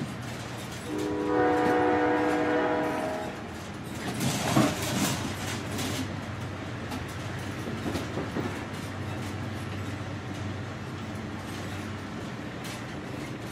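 Passenger train running at speed, heard from inside the carriage as a steady rumble. About a second in, the horn sounds one chord of several notes for about two seconds. A brief louder rush follows around four to five seconds in.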